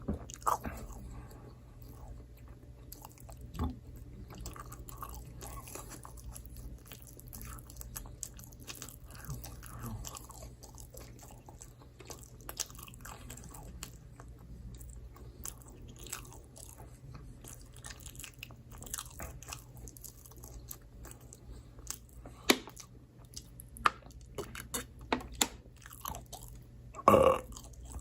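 Close-miked chewing and biting of microwave pizza, with small irregular crunches and wet mouth clicks, and one louder mouth sound about a second before the end.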